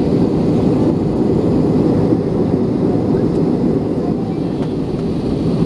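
Steady cabin noise inside an Airbus A321 with CFM56 engines: a constant low rumble of engines and airflow that holds level throughout.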